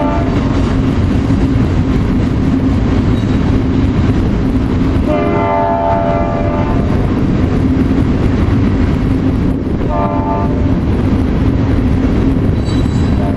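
A long freight train rolling past with a steady loud rumble and clatter of its cars. Its horn sounds several times: briefly at the start, for over a second about five seconds in, briefly about ten seconds in, and again near the end.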